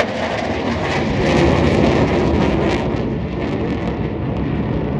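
A twin-engine F/A-18 Hornet fighter jet's engines roaring as it flies overhead. The roar swells about a second and a half in, then slowly eases.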